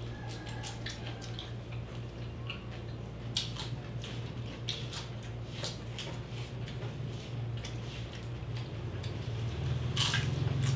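Close-up eating sounds of roast whole pig (lechon): wet lip smacks, chewing and small sticky clicks as meat is bitten and pulled apart by hand, scattered irregularly over a steady low hum.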